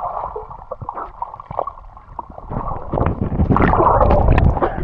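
Water sloshing and splashing with wind buffeting the microphone, getting louder in the second half.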